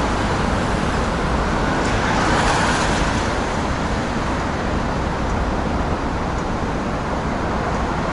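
Steady road traffic noise, swelling a little about two to three seconds in.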